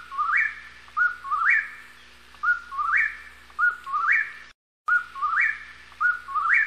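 A songbird whistling a short two-part phrase over and over, about once a second: a steady note, then a lower note that climbs quickly to a higher one. The sound cuts out completely for a moment about four and a half seconds in.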